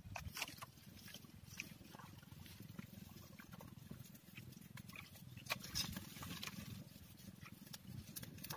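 A bundle of dry palm leaves burning under a hanging cooking pot, crackling faintly with scattered sharp pops over a low steady rumble.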